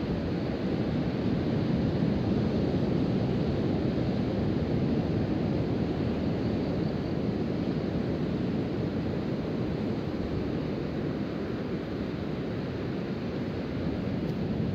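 Steady wash of ocean surf mixed with wind noise on the microphone, a low, even rushing sound.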